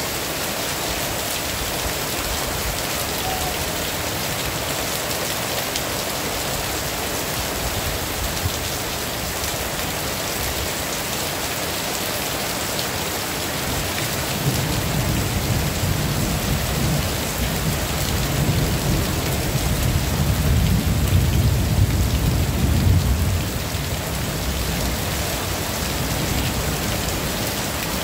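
Heavy rain falling steadily. About halfway through, a low rumble of thunder builds for roughly ten seconds, then drops away sharply.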